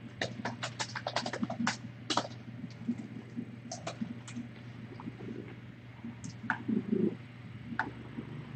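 Computer keyboard typing: irregular clicks, a quick run in the first couple of seconds and then scattered keystrokes, over a steady low electrical hum.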